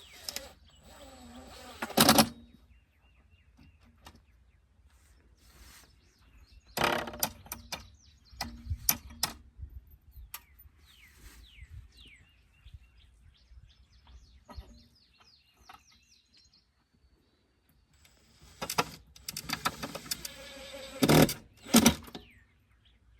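Cordless drill driving screws into a rain gutter, its motor whirring in several short bursts, with a cluster of them near the end.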